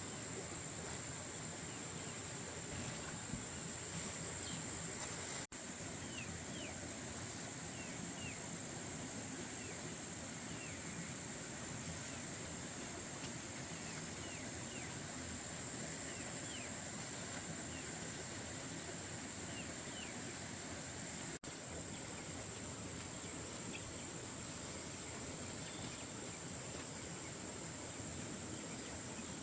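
A steady high-pitched insect drone over an even outdoor background hiss, with faint short chirps now and then. The sound drops out abruptly for an instant twice.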